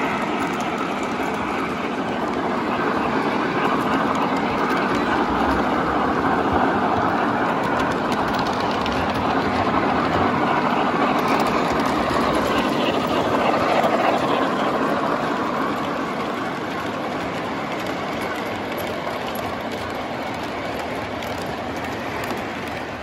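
O gauge model steam locomotives and passenger cars running past on three-rail track, their wheels and motors making a steady rolling clatter that grows louder in the middle and eases off over the last several seconds.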